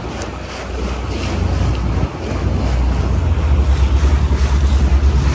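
A small boat's engine rumbling under wind buffeting the microphone and water splashing; about three seconds in the engine grows louder with a quick, regular pulsing.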